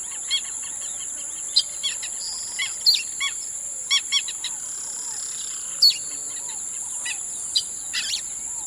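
Birds chirping in short, repeated arching calls over a steady, high-pitched insect drone.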